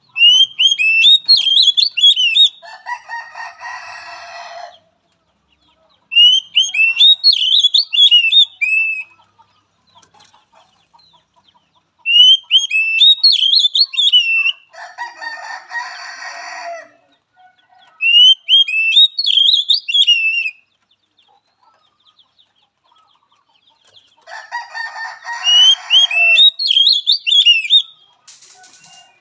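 Oriental magpie-robin song: five loud bursts of rapid, down-slurred whistled notes, about one every six seconds, three of them joined by a harsh, buzzy churr lasting a couple of seconds.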